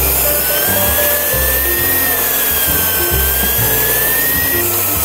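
Electric stand mixer running as its beater works stiff butter-cookie dough, the motor whining with a slowly wavering pitch. Background music with changing bass notes plays alongside.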